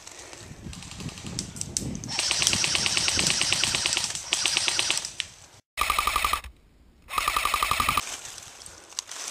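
Electric airsoft rifle firing on full auto: a long rapid burst starting about two seconds in, a shorter burst after it, then more rapid fire with a brief break near the end.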